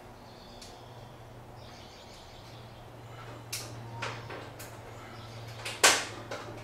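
Hand and screwdriver handling on a metal electrical box: scattered clicks and light scrapes, with one sharp clack near the end.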